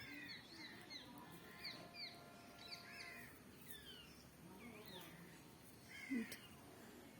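Birds chirping faintly in the background: short, high, sliding chirps, a few each second.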